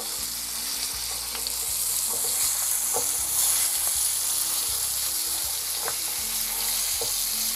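Stuffed mackerel coated in rava and rice flour shallow-frying in hot oil in a frying pan: a steady sizzle, a little stronger in the middle, with a few light clicks.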